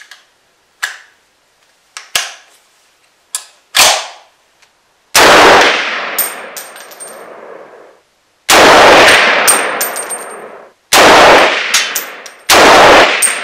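Browning BAR Mk3 Stalker semi-automatic rifle in .300 WSM fired four times, roughly two to three seconds apart, each very loud shot trailing off in a long echo with a brief high metallic ringing after it. Before the first shot there are a few small clicks and one sharp clack of the rifle being handled.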